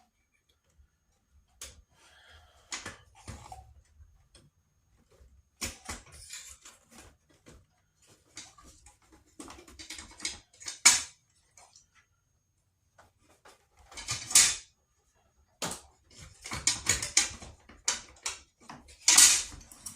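Intermittent clicks, knocks and short scraping sounds of hand tools and metal and plastic parts being handled while a Kirby vacuum cleaner is taken apart. The loudest are a sharp knock about eleven seconds in and scraping bursts near the end.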